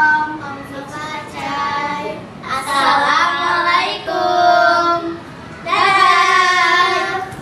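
A group of young girls singing together in unison, in several drawn-out phrases with long held notes.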